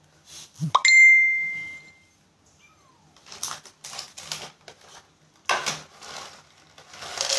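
A bright chime rises and then rings for about a second, about a second in; it is the loudest sound. From about three seconds in, a plastic bag of dry cat food crinkles as it is handled, and near the end dry kibble starts pouring into a plastic bowl.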